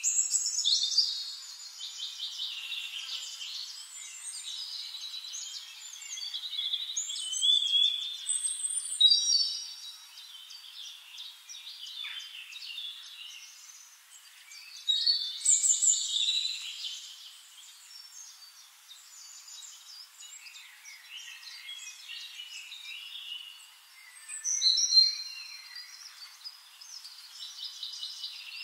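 Small birds chirping and singing, many short calls overlapping, with a few louder phrases now and then.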